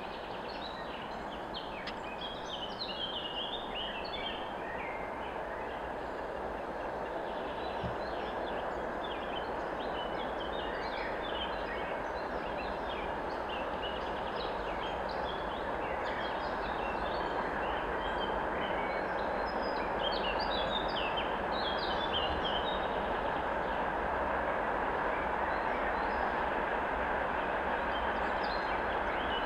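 A VL80t electric locomotive hauling a freight train approaches from a distance: a steady rumble and hiss that slowly grows louder. Birds chirp throughout.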